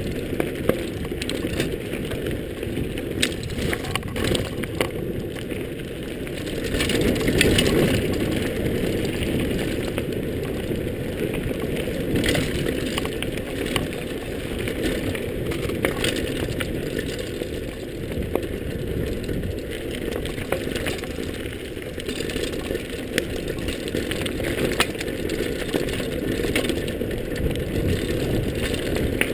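Mountain bike rolling fast downhill on a dirt trail: a steady rumble of tyres on dirt and air rushing past, broken by frequent clicks and rattles as the bike runs over bumps.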